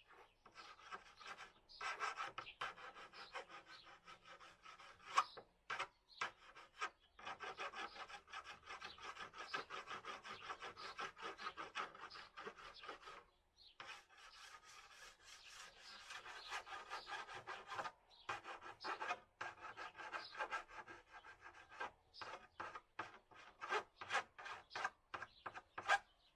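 Rapid back-and-forth rasping strokes of hand filing on a panel edge, going on steadily with a few short breaks, the longest about halfway through.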